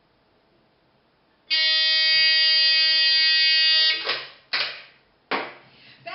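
Rotary telephone ringing: one steady, loud ring of about two and a half seconds, cut off as the handset is lifted from its cradle. Then three clunks as the handset is picked up and laid on the table.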